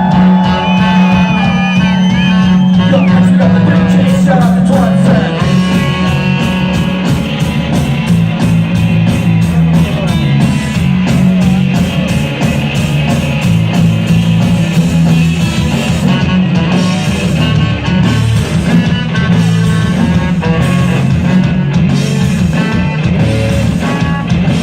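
Live rock band playing an instrumental passage: guitar, bass and drums, loud and steady.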